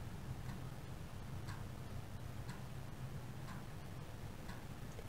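Fingertips tapping lightly on the eyebrow point in EFT tapping: faint, even taps about two a second.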